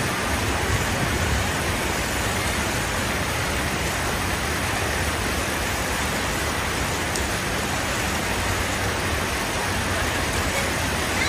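Steady street noise: an even rushing hiss with a low engine rumble underneath, with no distinct events.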